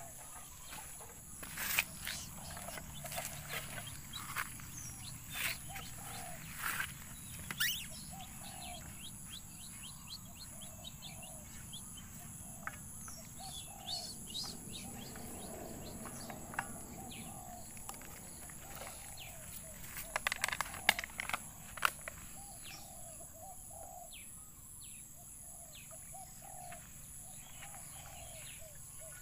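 Outdoor rural ambience: a bird chirping over and over in short calls, with a steady high hiss behind it. Scattered sharp clicks and knocks come through, with a cluster of louder knocks about twenty seconds in.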